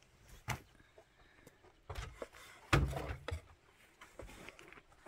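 Kitchen knife slicing tomatoes on a wooden cutting board: a handful of irregular knocks as the blade hits the board, the loudest a little under three seconds in.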